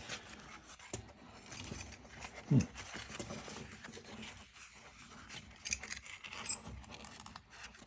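Faint rubbing, scraping and small clicks of GM seatbelt webbing and its metal parts being handled as the belt is forced through the frame. A brief low voice sound, falling in pitch, about two and a half seconds in, and a couple of sharper clicks near the end.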